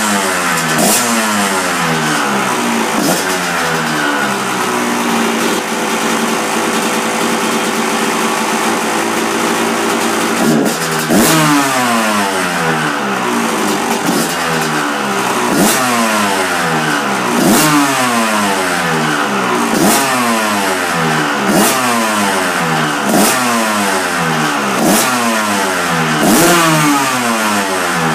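1999 Honda CR125's single-cylinder two-stroke engine running with the throttle blipped over and over, each rev rising sharply and dying back. The blips come every second or two from about ten seconds in, after a steadier stretch.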